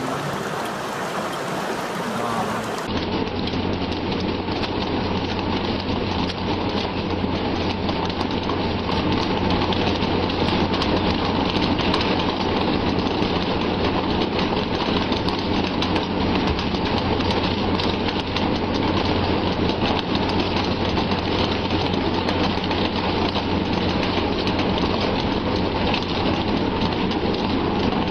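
From about three seconds in, a steady low machinery hum of a fishing vessel runs under a dense, rain-like patter and splashing of sea spray against the hull and deck.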